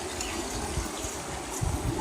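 Running creek water, a steady rushing hiss, with wind gusting on the microphone as a low irregular rumble.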